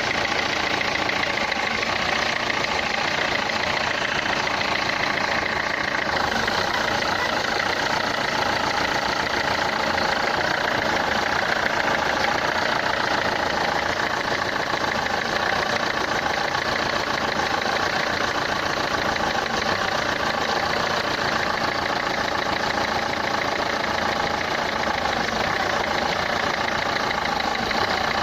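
Renault Clio 3's 1.5 dCi four-cylinder diesel engine idling steadily with a fast, even clatter, a noise put down to the fuel injectors.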